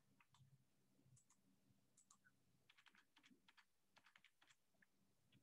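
Near silence with faint, scattered computer keyboard typing clicks, thickest a little past the middle.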